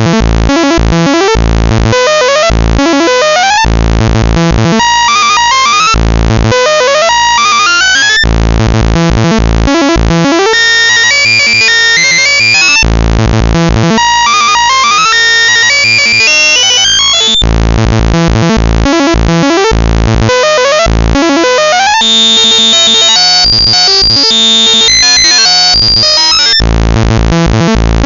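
Loud, harsh computer-generated noise music played by a joke malware program: buzzy, grating synth tones with repeated rising pitch sweeps, the pattern switching abruptly every four or five seconds, in the style of algorithmic bytebeat audio.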